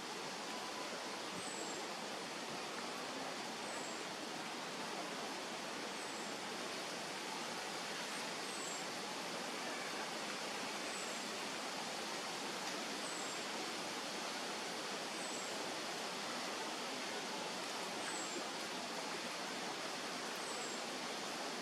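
Steady outdoor background hiss with a faint, high, short falling chirp repeating about every two seconds.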